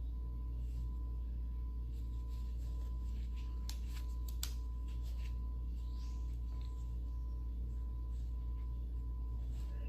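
A steady low electrical hum with a constant faint high tone over it, and a quick cluster of three or four light clicks about four seconds in.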